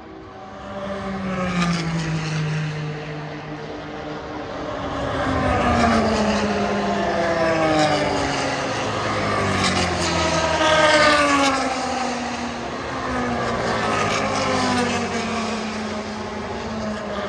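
Several historic racing cars passing at speed one after another, each engine note dropping in pitch as it goes by, the sounds overlapping; loudest about a third and two thirds of the way through.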